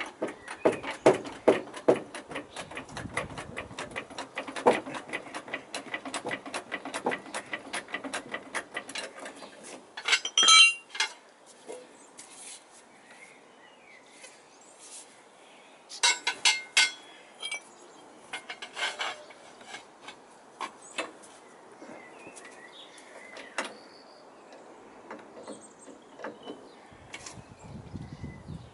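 Trolley jack being worked by its handle, a quick run of clicks and clatter for the first ten seconds, then steel bar stock clanking and ringing, loudest about ten seconds in and again around sixteen seconds in.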